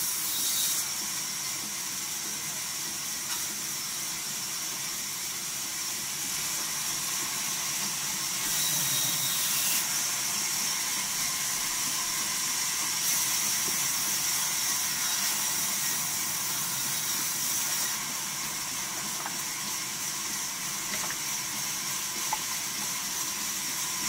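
Large vertical band saw running and ripping a log lengthwise: a steady high hiss of the blade in the wood, swelling louder in stretches.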